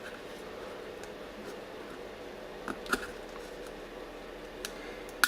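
Small plastic clicks as the Campark Panoview 360 camera's plastic case is pried apart, then a sharp snap near the end as the part pops off. A faint steady hum lies underneath.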